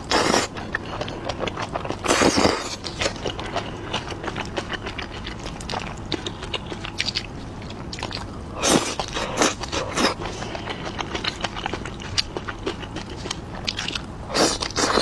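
Close-miked eating: a person chewing with a steady run of small wet clicks and smacks. Several louder bursts stand out, about two seconds in, around nine and ten seconds in, and near the end.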